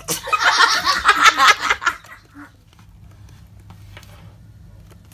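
A burst of laughter lasting about two seconds, then faint rustling and taps of paper being handled.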